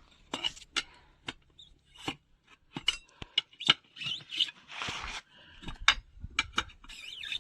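Hand work on a tyre and tube: irregular clicks and taps of tools and parts being handled, with short rubbing and scraping sounds, one longer scrape about five seconds in.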